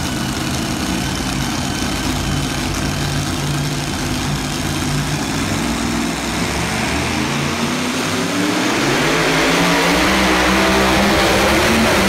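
Pulling truck's engine running at a steady low pitch, then from about six seconds in revving up, its pitch climbing and the sound growing louder as the truck launches its pull against the weight sled.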